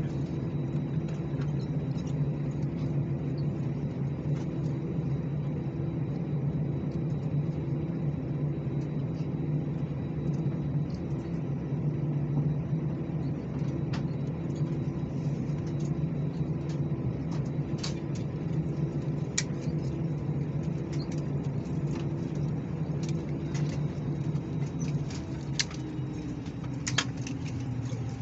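Airbus A319 cabin while taxiing: the steady drone of the jet engines at idle, with scattered light clicks and rattles. A little before the end the pitch of the hum drops slightly.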